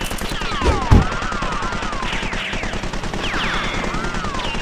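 Added sound effect of rapid, machine-gun-like clatter overlaid with sliding, whistling zaps, with a heavy thud about a second in.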